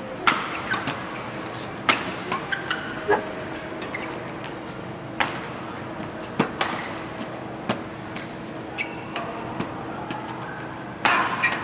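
Badminton rally: sharp smacks of rackets hitting the shuttlecock at irregular intervals, a second or several apart, over a steady hall hum, with a louder cluster of hits and noise near the end.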